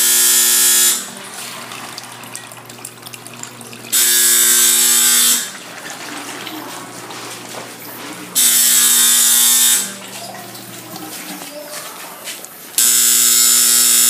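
Arduino alarm buzzer sounding in repeated harsh buzzes, each about a second and a half long and about four seconds apart: the low-water alarm, signalling that the hydroponic reservoir's water level is low.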